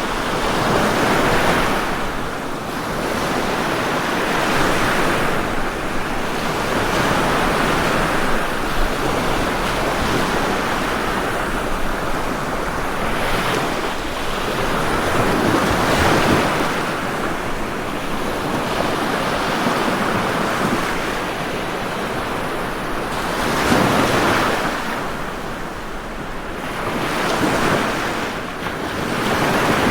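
Ocean waves washing onto a shore, a continuous surf hiss that swells and recedes every few seconds, with stronger surges about a second in, at the halfway mark, and near the end.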